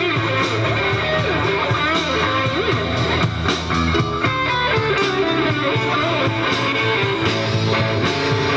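Live band playing, with guitar to the fore.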